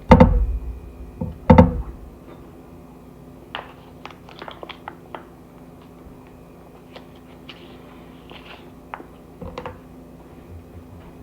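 Close-up eating sounds of a pickle being bitten and chewed: two loud thuds in the first two seconds, then soft scattered crunching clicks over a faint steady room hum.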